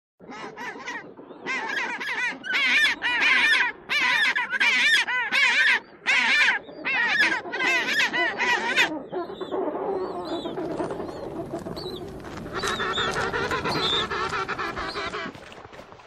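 Humboldt penguins braying: a long run of loud, evenly repeated honking call notes for about the first nine seconds, then softer mixed calls and one more drawn-out bray near the end.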